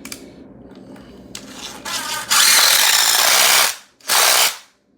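Power drill driving a screw through a wooden floor plate into a pre-drilled hole in concrete: the motor spins up, runs loud for over a second, stops, then gives one short final burst to seat the screw.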